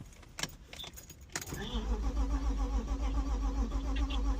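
Keys click in the ignition of a BMW E36, then the starter cranks the engine steadily for about three and a half seconds without it catching: the fuel pump isn't priming.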